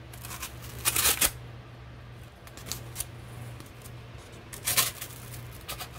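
Ka-Bar Dozier Small folding knife slicing through a sheet of brown kraft paper in a few rasping cuts, the loudest about a second in, then shorter ones around the middle and near the end. It is an edge test: the blade, never sharpened, is found to be getting a little dull.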